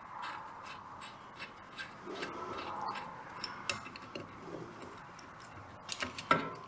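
Faint, quick light clicking, about three a second, as a small nut is spun off the rocker-arm bolt of a John Deere Model E hit-and-miss engine by hand. A few sharper clicks come near the end as the nut comes free.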